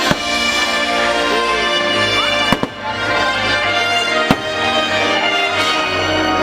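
Fireworks bursting: three sharp bangs, one right at the start, one about two and a half seconds in and one just past four seconds, over the fireworks show's musical soundtrack playing loudly.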